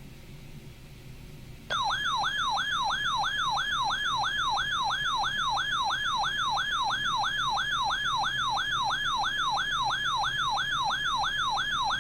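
Weather radio's alert siren sounding for an incoming severe thunderstorm warning: a loud warbling tone, about three rising-and-falling sweeps a second. It starts suddenly about two seconds in after faint hiss, and cuts off abruptly at the end.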